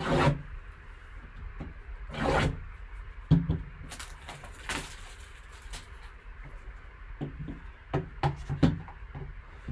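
Handling of a shrink-wrapped trading-card box: scattered crinkles of the plastic wrap and light knocks and clicks as the box is turned over on the table.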